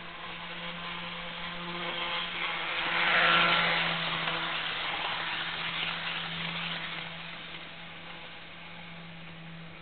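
HO-scale Jouef Amtrak RTG Turboliner model train running on its rebuilt Kato motor drive, the whir of motor and wheels on the track over a steady hum. It grows louder to a peak about three seconds in as the train passes close by, then fades as it runs away.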